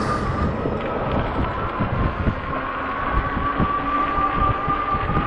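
Ecotric 20-inch e-bike's hub motor whining steadily while riding, its pitch creeping slightly upward, over wind on the microphone and knocks from bumps in the road.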